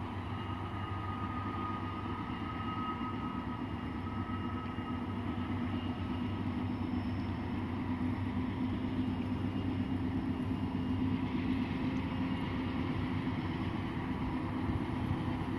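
Diesel locomotives of an approaching freight train heard at a distance: a low, steady rumble with a faint hum that slowly grows louder.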